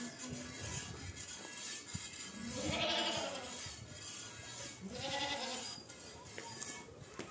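Goats bleating: two long quavering bleats, the first about three seconds in and a shorter one about five seconds in.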